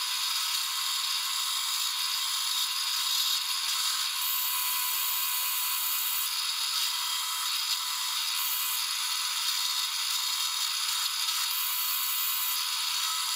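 Bench drill press running with a homemade rivet spinner in its chuck, pressed onto the end of an aluminium rivet in a pair of kitchen tongs to spin it over and flare it. A steady mechanical whir, turning harsher and higher at times as the tool bears down on the rivet.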